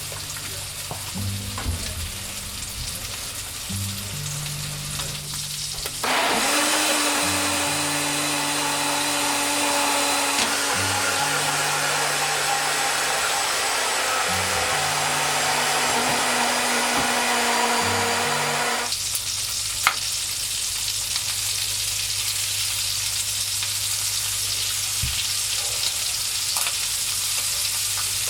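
Chicken thighs frying in a pan, a steady sizzle that gets much louder about six seconds in and drops back to a softer sizzle after about nineteen seconds.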